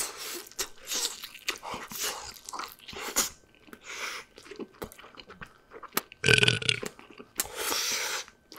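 Close-up chewing and crunching of crunchy food, a rapid run of short crunches and bites, with a louder burp about six seconds in.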